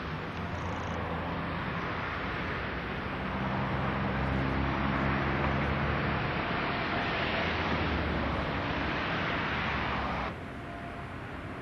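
A heavy diesel engine running over a steady rush of outdoor noise, its low hum swelling in the middle and then easing. The sound drops abruptly near the end.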